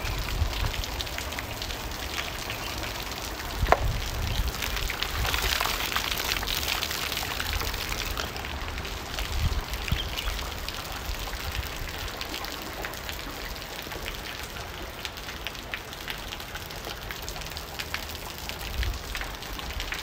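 Heavy rain falling and splashing on a wet surface: a steady hiss of many drops with individual drop taps scattered through it, and one sharper tap about four seconds in.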